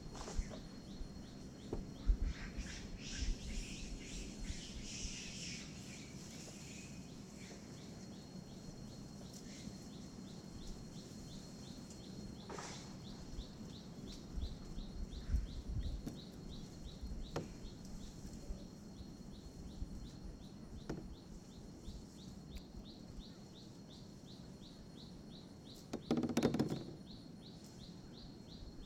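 Birds chirping and calling over forest and water, with a high, even ticking call repeating about two to three times a second through the second half. Low buffeting rumbles come and go, and a brief louder noise about a second long stands out near the end.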